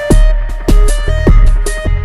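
Electronic background music with a steady, heavy beat and a short repeating melody.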